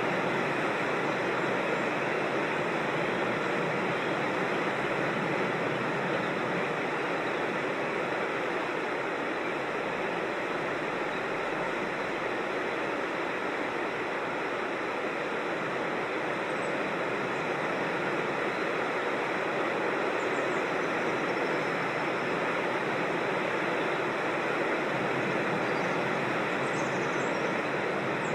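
Steady rushing of a creek's water over rocks and small falls, an even unbroken wash, with a few faint high bird chirps in the second half.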